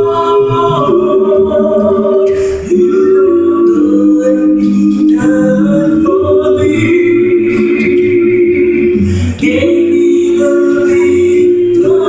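A cappella gospel vocal group of mixed male and female voices singing in harmony through handheld microphones, holding long chords that change every second or two, with no instruments.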